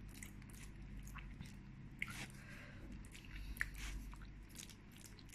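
Faint close-up chewing and mouth sounds of someone eating fried flat rice noodles (kuey teow), with a few soft clicks, likely from the wooden spoon on the plastic takeaway container.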